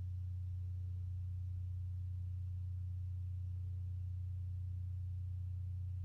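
A steady low hum, one unchanging tone with nothing else heard.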